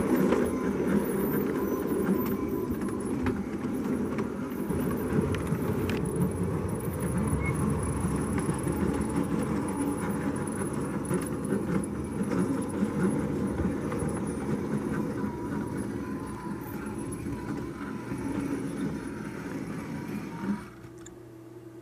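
O gauge model train's wheels rolling over the track: a steady rumble with light clicking that slowly fades, then stops abruptly about twenty seconds in as the train halts.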